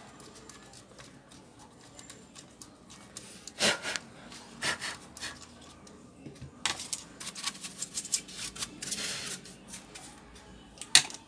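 Small clicks, taps and rubs of hands and a screwdriver working on a laptop's plastic casing and motherboard during reassembly, irregular and scattered, with a sharp click just before the end.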